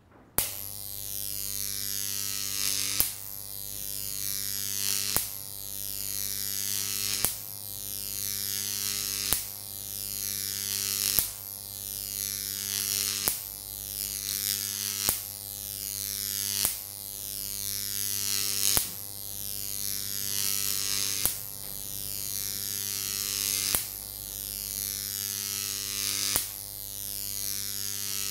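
Jacob's ladder arc driven by a 15,000-volt, 30 mA neon sign transformer: a steady electrical buzz and hum, with the arc's crackle growing louder as it climbs the copper-pipe electrodes, then a sharp snap as it breaks and restrikes at the bottom, about every two seconds. It switches on just after the start.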